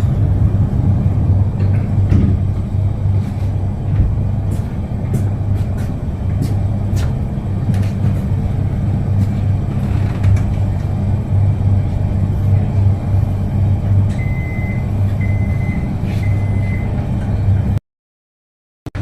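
Electric suburban train running, heard from inside the carriage: a steady low rumble and hum with scattered clicks and rattles. Three short high beeps sound near the end, then the sound cuts out for about a second.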